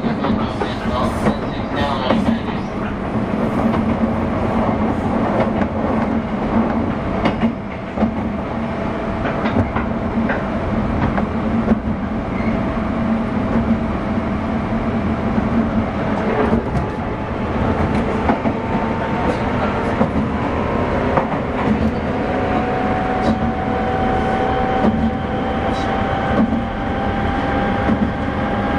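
Running sound heard inside the motor car of a JR West 201 series electric train: a continuous rumble of wheels and traction motors on the rails, with occasional knocks from the track. A faint motor whine rises slightly in pitch in the latter part. No chopper-control whine is heard, because this car has no chopper unit.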